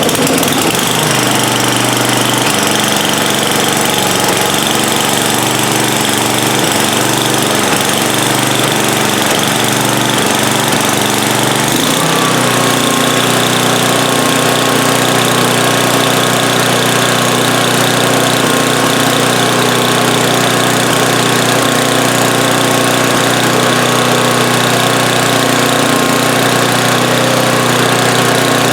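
Tecumseh Snow King single-cylinder four-stroke snowblower engine running, just started after a stuck carburetor float pin was freed. It runs unevenly for roughly the first twelve seconds, then settles into a steady run.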